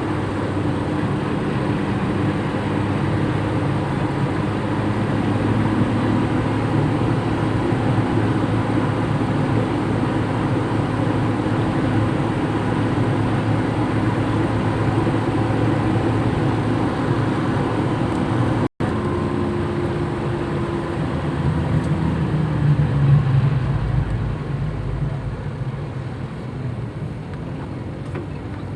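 A Toyota Kijang driving, its engine and road noise running steadily. After a break about two-thirds of the way in, the engine note falls and a louder low rumble swells briefly, then eases off.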